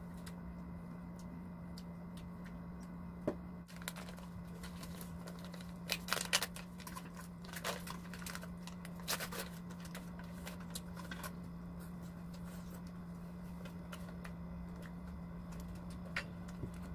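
Eating sounds: a paper food wrapper crinkling and tearing as a wrap is unwrapped, with scattered light clicks of a spoon and fork, over a steady low hum.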